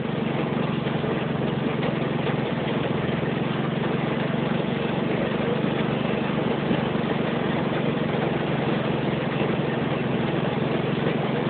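Heavy rain falling hard and steadily, a dense unbroken drumming.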